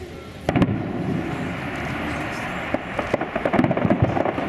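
Aerial firework shells bursting: a loud bang about half a second in, then a dense run of many small sharp pops from gold crackling bursts that grows busier toward the end.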